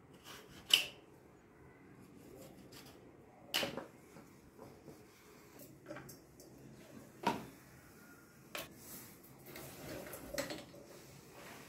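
Five or so light knocks and clicks, a couple of seconds apart, over a quiet background; the sharpest comes about a second in.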